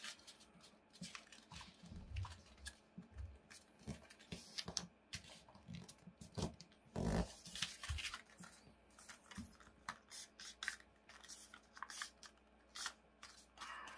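A sheet of origami paper being handled and pressed into small crimp folds with the fingers: irregular crinkling and rustling, with a few soft low knocks early on and a louder rustle about halfway through.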